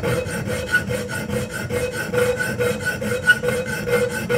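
A coarse hand file rasping back and forth across the steel jaws of needle-nose pliers clamped in a vise, in quick, even, repeated strokes. The file is biting and cutting metal rather than skidding, the sign that the jaws have been annealed soft.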